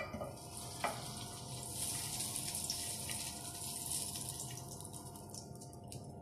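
Desi ghee sizzling and hissing as spoonfuls of it land in a hot nonstick frying pan, with a steel spoon clinking against the pan at the start and again about a second in.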